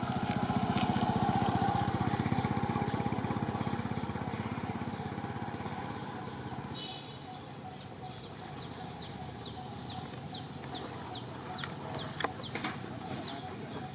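A motorcycle engine running, fading away over the first six seconds. From about seven seconds in, a bird chirps over and over, short falling notes about twice a second.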